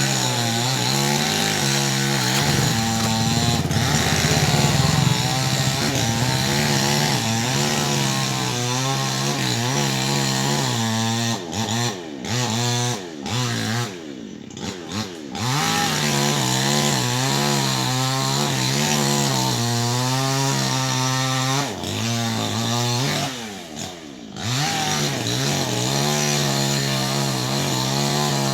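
Chainsaw running and cutting into a tree, its engine revving up and falling back repeatedly, with brief easings of the throttle around the middle and about two-thirds through.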